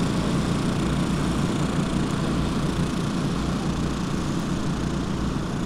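The electric motor and propeller of a 6S-powered RC Cessna 182 foam model, droning steadily in flight.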